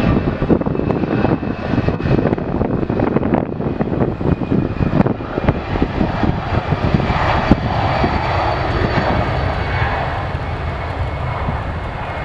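US Airways Airbus A319 jet engines at takeoff power during the takeoff roll: a steady roar with a thin high whine, swelling in the second half as the aircraft passes.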